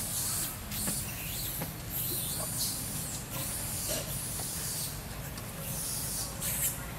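Outdoor tree-canopy ambience: a high hiss that comes and goes every half second or so, a few faint clicks, and a steady low rumble underneath.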